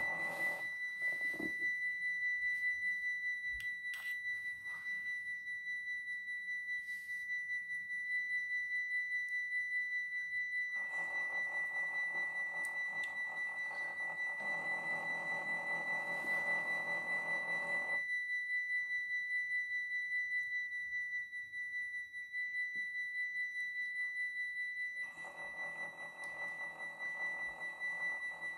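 Model Dutch level-crossing bell sounding continuously: one steady high ringing tone that pulses rapidly. A lower whirr joins it from about eleven to eighteen seconds in and again near the end, while the barrier arms move.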